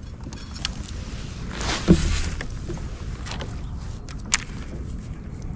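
Gear being handled aboard a fishing kayak: a sharp thump about two seconds in and a few light clicks, over a steady low rumble of wind on the microphone.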